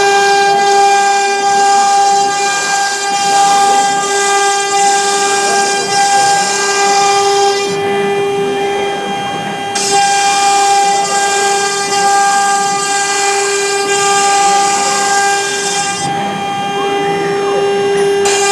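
CNC router spindle running at a steady high whine while the router cuts MDF. A hissing cutting noise rides on top and drops out twice for about two seconds, about a third and four fifths of the way in, as the cutter pauses between passes.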